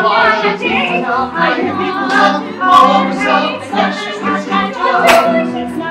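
Stage-musical cast singing an ensemble show tune together, with musical accompaniment.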